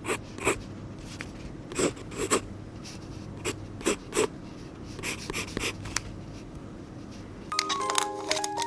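Scattered light taps and clicks, some in quick pairs, over a low steady hum, like small objects being handled; bright music with stepping notes starts near the end.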